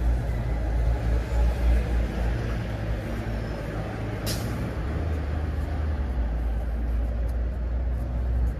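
Street traffic: a heavy vehicle's engine running with a low rumble, and one short, sharp hiss of its air brakes about four seconds in.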